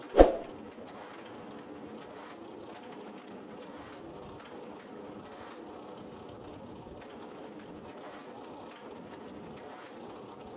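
A firewood splitter's steel wedge and table: one sharp knock with a brief metallic ring about a quarter second in, as a log is driven onto the wedge, then a steady low noise with faint irregular ticks.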